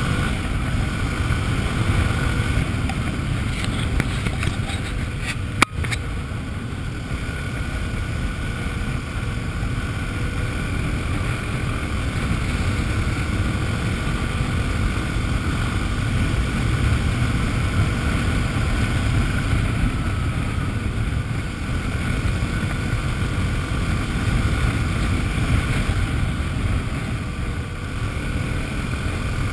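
Enduro-style motorcycle engine running steadily at cruising speed, mixed with wind buffeting the microphone. One sharp knock about six seconds in.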